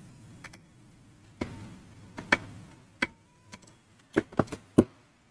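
Sharp plastic clicks and taps of a small white wire connector being handled and pushed into its socket on a TV power supply board: a few scattered clicks, then three in quick succession near the end.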